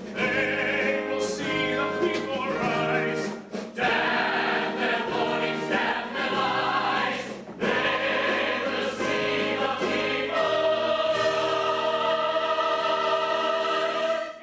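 Musical-theatre ensemble singing in full chorus over a pit orchestra, in phrases with short breaks between them, ending on one long held chord for the last four seconds or so.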